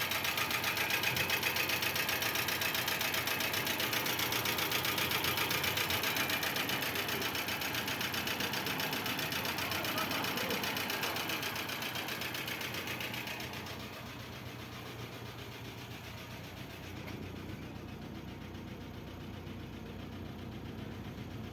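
2005 Chevrolet Corsa engine idling with a fast, heavy knock. The oil warning light is on, and the knock is the sign of engine damage from lack of oil maintenance. About fourteen seconds in, the sound drops to a quieter, steady level.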